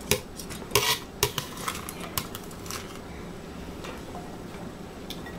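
A hand scoop gathering chopped celery off a cutting board and knocking against a glass bowl: a run of short, light knocks and scrapes over the first few seconds, then only a steady low room hum.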